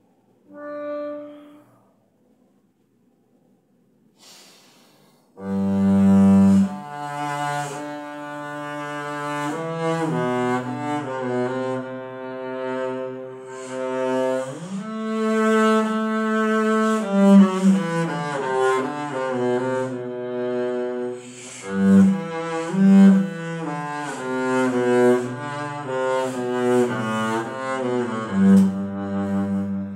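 Double bass played with the bow (arco): after a brief pitched tone about a second in, a continuous bowed passage begins about five seconds in, moving through changing notes with several heavy low notes standing out.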